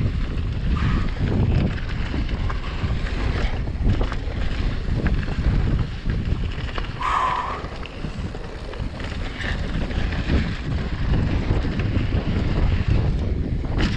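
Wind buffeting an action camera's microphone while a Marin Alpine Trail Carbon 2 mountain bike runs fast downhill over a loose dirt trail, its tyres rumbling on the dirt and the bike knocking and rattling over bumps. A short squeal comes about halfway through.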